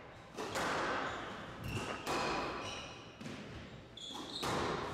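Squash rally on a glass-walled court: the rubber ball cracks off rackets and walls about half a dozen times, each hit ringing briefly in the hall, with short high squeaks of court shoes on the wooden floor.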